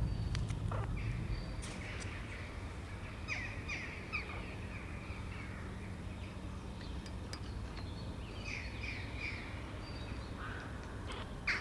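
A bird calling outdoors in two quick runs of short, falling calls, about three seconds in and again near nine seconds, over a steady low rumble of background noise. A sharp click comes just before the end.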